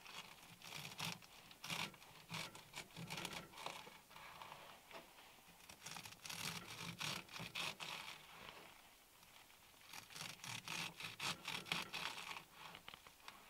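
A kitchen knife chopping fresh green stalks on a wooden cutting board: quick, crisp strokes, several a second, in three runs with short pauses between them.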